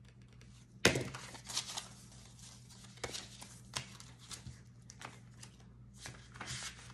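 A clear plastic cash-binder pouch crinkling and paper bills rustling as they are handled, with a sharp, loud rustle about a second in and shorter rustles after it.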